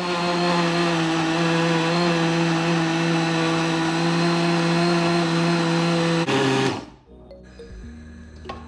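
Countertop electric blender running steadily, pureeing onion, pepper, ginger and garlic into a paste. Its motor drops briefly in pitch and then stops about six and a half seconds in.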